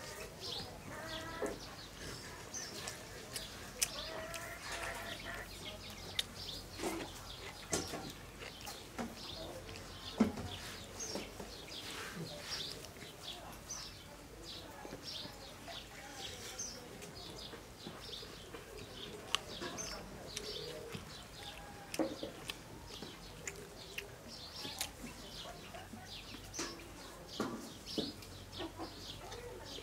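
Small birds chirping over and over, over faint sounds of eating by hand: fingers mashing rice and fish curry on a banana leaf, with a few soft clicks and knocks.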